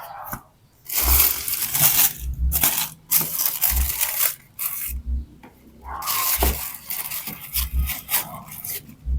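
Sneaker packaging being handled and opened: irregular bursts of rustling, crinkling and scraping paper or plastic, with low bumps from handling.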